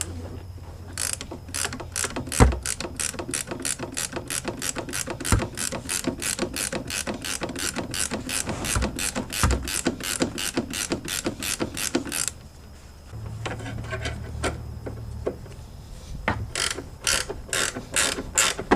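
Ratchet wrench clicking in a steady rhythm of about four clicks a second as a bolt under the car is loosened. The clicking pauses for a few seconds, then starts again near the end.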